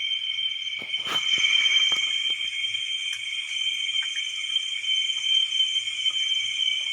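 Insect chorus in a forest, a steady high-pitched chirring held on two constant pitches, with a few brief clicks about a second in.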